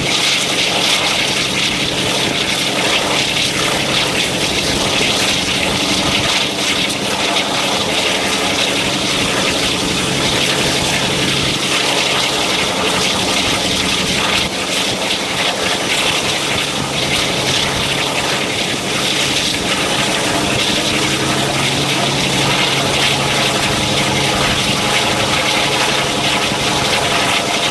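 Class 52 'Western' diesel-hydraulic locomotive's twin Maybach V12 diesel engines running loud and steady under power, a continuous throbbing engine note with a strong high hiss.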